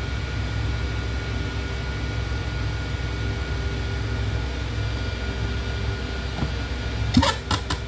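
Egg incubator running with a steady whir. Three quick knocks or clicks come close together near the end.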